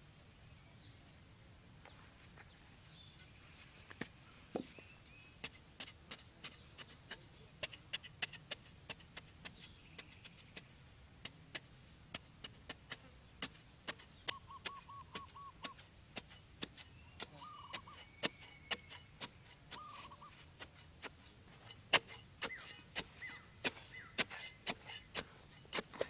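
Hatchet blade chopping repeatedly into dry, packed dirt to break up the soil, sharp strikes a few times a second that grow louder near the end. Faint bird calls in the background, including a quick run of short notes about halfway through.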